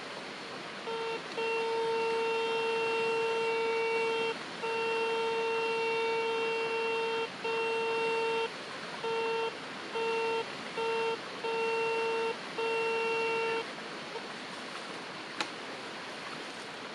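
Metal detector giving its target tone over the dug hole: a steady buzzy beep that sounds in long holds of a couple of seconds, then in shorter pulses, and stops a few seconds before the end, the detector's signal that metal lies under the search coil. A steady hiss runs underneath.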